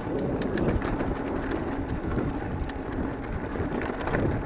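Mountain bike riding down a dry dirt singletrack: a steady rumble of tyres on dirt and air buffeting the camera microphone, with many small clicks and rattles from the bike over the rough ground.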